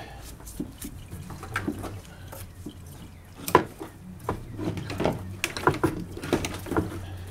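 A BMW E39 radiator being worked loose and lifted out of the engine bay: scattered knocks, clicks and scrapes of its plastic tanks and hose necks against the surrounding parts, the loudest knock about three and a half seconds in. A steady low hum runs underneath.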